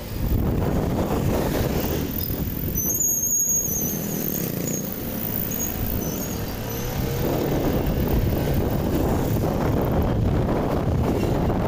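Steady wind and road noise with engine rumble from a moving motorcycle ride, buffeting the microphone. A few seconds in, a brief wavering high-pitched squeal sounds over it.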